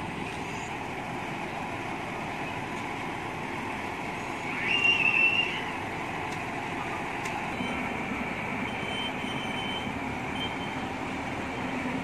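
Truck-mounted crane working, its diesel engine running steadily to drive the hydraulics. A short, loud, high-pitched squeal a little under five seconds in.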